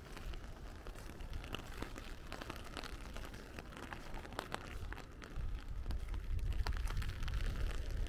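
Rain falling on an umbrella overhead, heard as many small irregular drop taps over a steady hiss of rain. Wind rumbles on the microphone, getting louder from about five seconds in.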